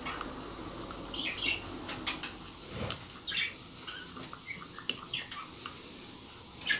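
Plastic spoon stirring and scraping thick Cerelac cereal paste against the sides of a ceramic bowl, in short, irregular scrapes.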